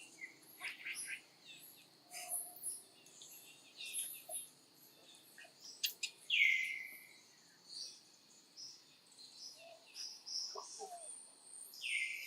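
Many short, high-pitched chirps and squeaks over a steady, high insect-like drone. About six seconds in and again near the end comes a longer call that drops in pitch and then holds.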